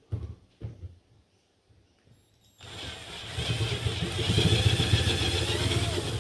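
Cordless drill-driver running for about three and a half seconds, driving a screw through a 3D-printed plastic bracket into the box. A few light handling knocks come before it.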